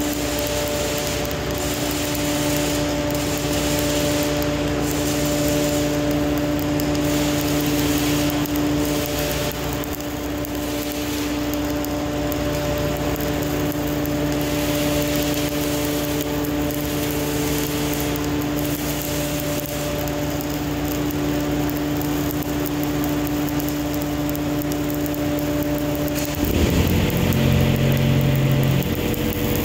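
Stick-welding arc from a 1/8-inch 308 stainless electrode, crackling and hissing steadily during a vertical-up weld, over a steady hum. About 26 seconds in the hum stops and a louder, lower rumble takes over.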